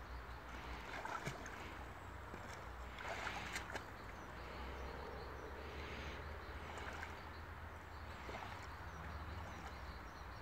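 Shallow icy water sloshing and splashing softly as a person wades barefoot through it, a few short splashes scattered over a steady low rumble.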